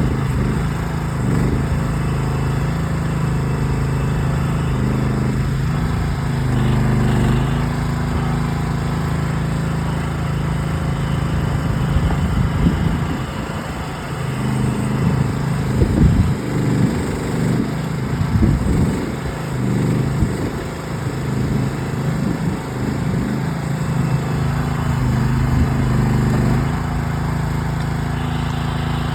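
Small gas engine of a Groundhog ZH12G mini excavator running under digging load, its pitch dipping and recovering as the hydraulics work. Through the middle stretch it turns uneven, with clattering and knocks as the bucket works through rocky soil.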